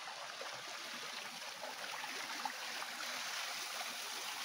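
Stream water running steadily, a constant rush of flowing water.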